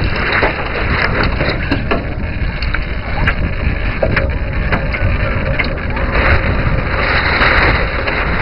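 Wind buffeting the microphone of a deck-mounted mini camera on a Ten Rater model yacht under sail, with water hissing along the hull and scattered small knocks. The water hiss swells about half a second in and again near the end.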